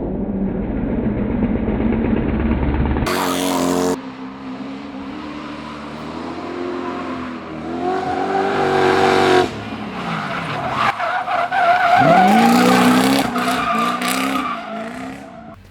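V8-swapped Mazda Miata with a Toyota 1UZ-FE engine drifting: the V8 revs rise and fall hard through several slides while the tyres squeal. About twelve seconds in the revs drop deep and then climb sharply, and the sound jumps abruptly a few times between separate runs.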